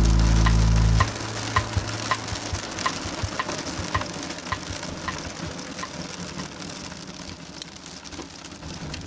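Rain pattering on a car's roof and windshield, heard from inside the moving car, with a light regular ticking about twice a second. Background music cuts off about a second in.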